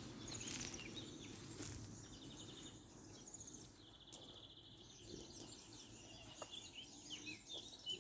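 Faint birdsong: several short, fast trills and chirps, high-pitched, over a low, steady background murmur.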